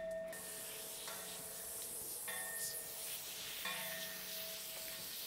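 Garden hose spray nozzle running, a steady hiss of water spraying.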